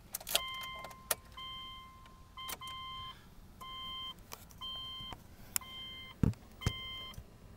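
2008 Subaru Outback's dashboard warning chime beeping about once a second, each beep a short three-note tone, with a few sharp clicks and a low thump near the end.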